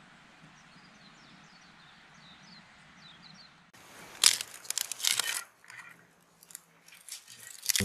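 Faint outdoor background with a few high bird chirps. About halfway through, a wooden pestle starts grinding and scraping in a metal bowl, giving irregular crunching strokes.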